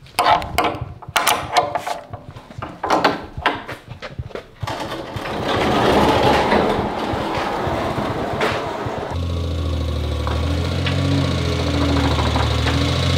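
Clinks and knocks of a tow strap's steel hook being fitted onto an eye bolt and the strap being handled. Then, from about nine seconds in, a small mini truck's engine idling steadily.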